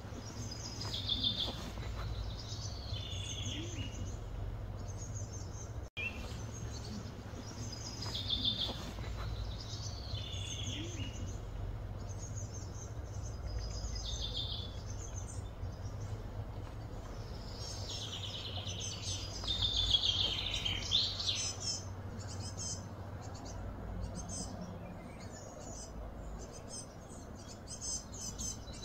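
Birds singing: a short high phrase that falls in pitch, repeated every couple of seconds, with a louder, busier burst of song about two-thirds of the way through. A steady low hum runs underneath.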